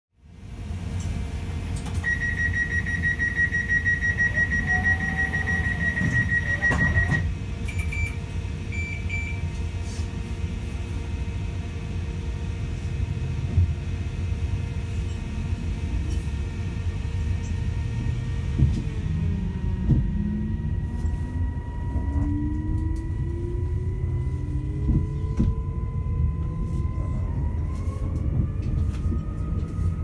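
Inside a Class 331 CAF Civity electric multiple unit pulling away: a steady low rumble under a high warning tone held for about five seconds, then a few short beeps, the usual door-closing warning. Past halfway the traction motors' whine comes in as several tones climbing together in steps, as the train accelerates.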